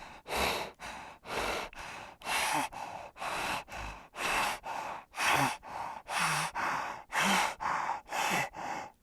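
Heavy, rhythmic breathing: short breathy puffs about twice a second, alternating louder and softer like in- and out-breaths.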